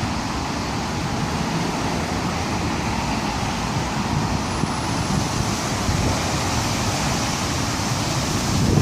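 Strong storm wind blowing hard in steady gusts, buffeting the microphone with a low rumble.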